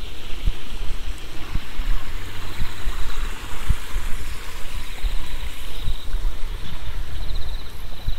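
Walking footsteps on a paved lane, with insects trilling in short pulses over a steady rushing hiss.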